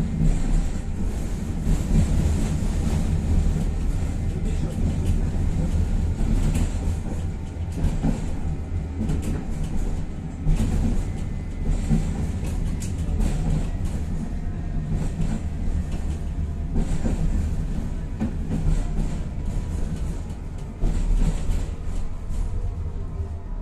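Tatra-Yug K1M tram running along the rails, heard from inside the car: a steady low rumble of wheels and running gear with scattered sharp knocks, louder about ten seconds in and again near the end.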